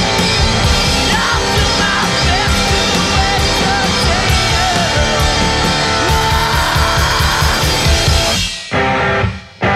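Rock band playing live: electric guitar and drum kit with a sung vocal over them. Near the end the band stops short twice, with a brief hit in between.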